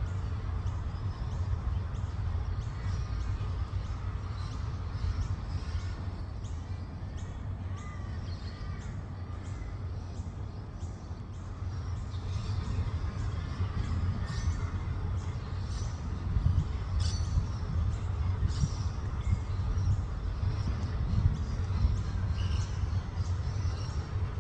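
Australian white ibis croaking and squawking, with frequent short chirps and clicks over a steady low rumble.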